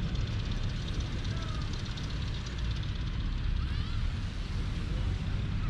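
Outdoor ambience: a steady low rumble with a few faint short chirps over it.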